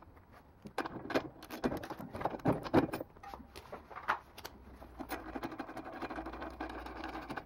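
A socket wrench being fitted onto and turning out a two-stroke blower engine's spark plug: scattered metal clinks and knocks, then a run of light, quick ticks near the end.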